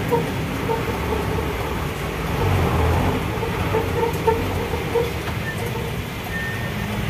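Diesel truck engine running at low speed in slow, jammed traffic, heard from inside the cab as a steady rumble, with the engines of the surrounding coal trucks close by.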